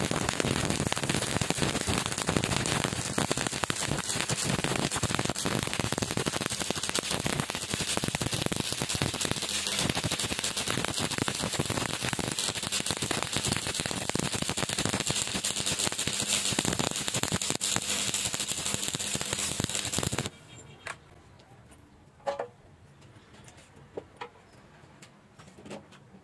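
Stick (shielded metal arc) welding arc crackling and sizzling steadily as an electrode lays a bead along a steel joint, stopping abruptly about 20 seconds in when the arc is broken. A few faint ticks follow.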